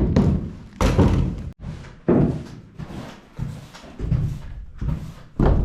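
Wooden shed door being knocked and shut: a series of about six separate thuds and knocks spread over a few seconds.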